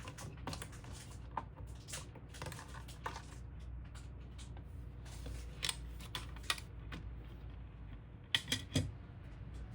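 Irregular light clicks and taps of small hard parts being handled, with a quick run of three sharper clicks near the end, over a low steady hum.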